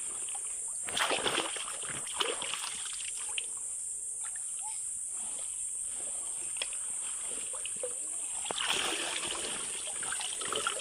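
Shallow seawater splashing and trickling in short, irregular spells as hands work in it while gathering clams.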